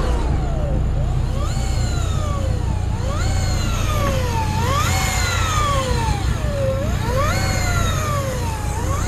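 Electric deep-drop fishing reel's motor whining, its pitch rising quickly and then falling slowly over and over, about every two seconds, as the load on the line changes. A steady low rumble runs underneath.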